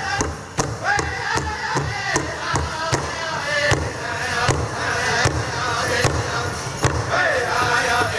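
Big drum struck in unison by four seated drummers in a steady beat of about two and a half strokes a second, with the drummers singing a chant in high voices over it.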